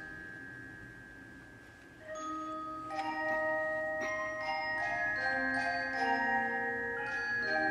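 Metal-bar mallet percussion, a glockenspiel-type keyboard, played softly as a slow melody of single struck notes, each left ringing. The notes come in about two seconds in, after an earlier note has faded, and quieter low sustained band tones sound beneath them around the middle.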